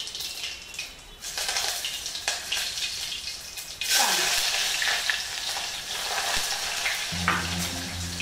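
Hot oil sizzling in a steel pot during a tadka of mustard seeds and cumin, as curry leaves go in. The sizzle turns much louder about four seconds in as another handful is dropped into the oil, with a few sharp pops.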